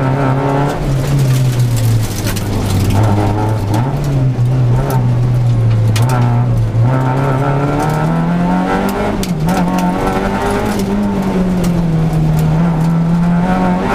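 Peugeot 206 rally car's engine at full stage pace, heard from inside the cabin, its pitch climbing and falling as the driver accelerates, brakes and shifts, with a brief drop about nine seconds in. Sharp knocks and rattles come through the shell now and then.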